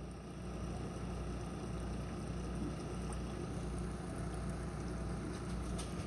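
Aquarium water circulating: a steady low hum with bubbling water.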